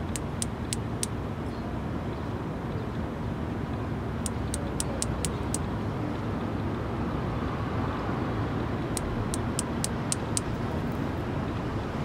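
Male Platypedia putnami cicada clicking its wings, the species' mating call: three short runs of sharp, dry clicks, about four to seven clicks each at three to four a second, near the start, about four seconds in and about nine seconds in. Under them is a steady low background rumble, the loudest sound throughout.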